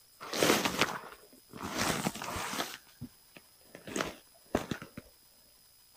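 Hooked largemouth bass splashing at the water's surface beside a canoe in two bursts of about a second each. A few short knocks follow, with a last brief splash.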